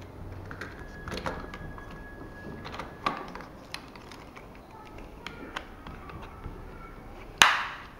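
Hard plastic clicks and knocks from an action camera's clear waterproof housing being handled, with plastic bag rustle. About seven seconds in comes a single loud snap, the housing's latch clicking shut over the camera.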